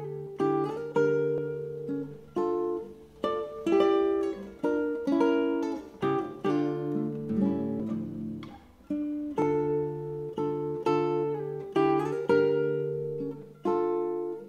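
Solo nylon-string classical guitar played fingerstyle: a plucked melody over bass notes and chords, each note ringing and decaying, with reverb added to the recording.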